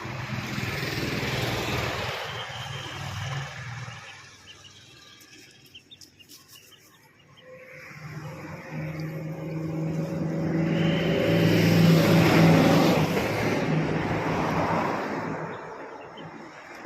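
Motor vehicle engine noise that grows louder and then fades away, like a vehicle passing. Before it comes a quieter swell of the same kind, then a few seconds of near quiet with faint clicks.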